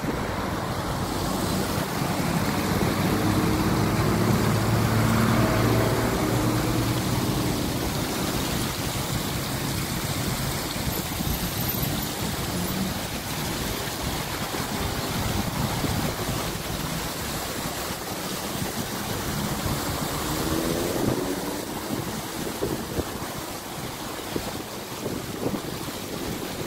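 Street traffic, with a vehicle engine passing loudly a few seconds in and another accelerating about twenty seconds in, over a steady rush of fountain water splashing and wind on the microphone.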